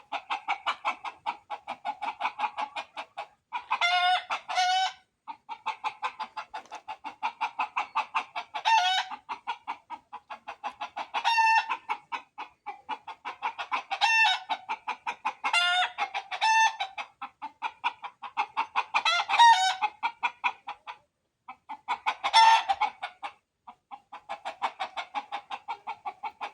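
Chickens clucking in rapid, near-continuous runs, broken every two to three seconds by a louder, pitched call.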